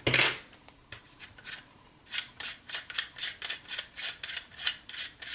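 Flash hider being unscrewed by hand from an airsoft rifle's outer barrel: one louder scrape at the start, then a run of short rasping scrapes of the threads, three or four a second.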